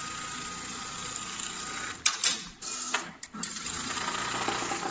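Richpeace programmable pattern sewing machine stitching a shoe upper: a steady high-speed running noise with a faint high whine. A little before the middle it is broken by a handful of sharp clicks and short pauses, then runs steadily again.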